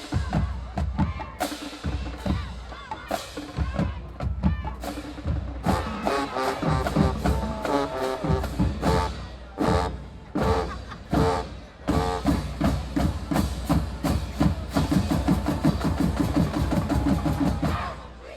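Marching band drumline playing, with bass and snare drums and pitched band passages in between. A fast, even run of drum strokes builds over the last few seconds and stops sharply at the end.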